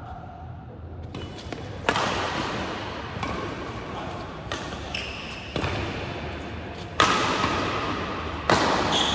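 Badminton rally: rackets strike the shuttlecock about six times, roughly every second and a half. Each sharp hit rings on in the hall's echo, and the two loudest hits come near the end.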